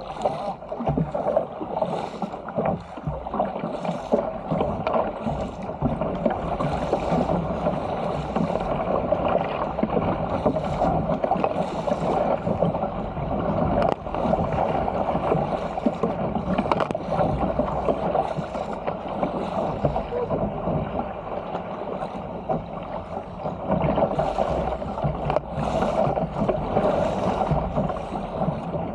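Sea water rushing and splashing along the hull of a Stealth 475 fishing ski as it is paddled downwind through waves, with irregular splashes from paddle strokes and spray every second or two.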